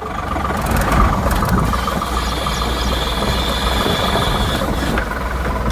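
Ashok Leyland Bada Dost i4 pickup's 1.5-litre diesel engine running steadily from inside the cab as the truck creeps through a tight full-lock turn, with a grainy crunching of tyres on gravel over the top.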